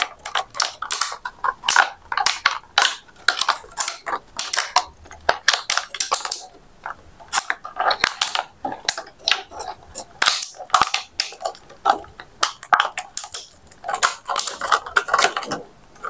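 Thin plastic drink bottle crackling and crinkling in the hands as its cut strips are bent open into a fan shape: a fast, irregular run of sharp crackles.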